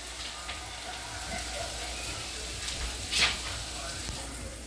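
Food sizzling steadily in a frying pan on the stove, with a utensil stirring and scraping the pan, most loudly once about three seconds in.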